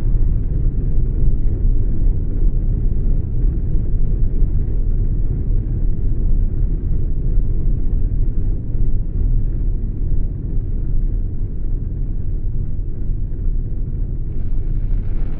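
A loud, steady deep rumble, heaviest in the lowest bass, with a higher hiss joining it about a second before the end.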